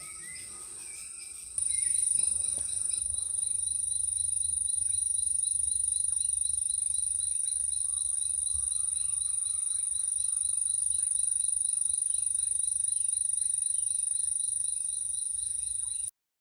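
Rainforest insects trilling in a steady, high-pitched chorus that comes in abruptly about a second and a half in and cuts off suddenly just before the end.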